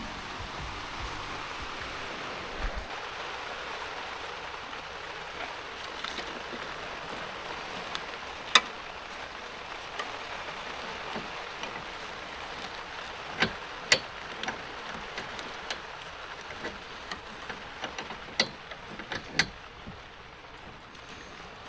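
Steady rain hiss, with a scatter of sharp clicks and knocks, the loudest about a third of the way in and in the middle.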